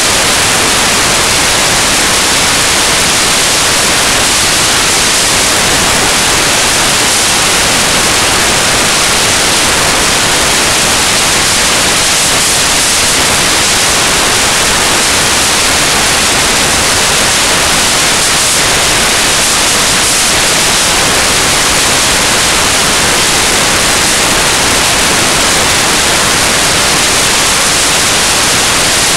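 Loud, steady static hiss that does not change, strongest in the high range. It covers any street sound, like recording noise from the camera's audio.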